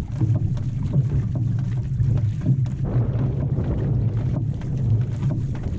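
Water rushing and splashing along the hull of an outrigger canoe as it is paddled, with a steady low wind rumble on the microphone.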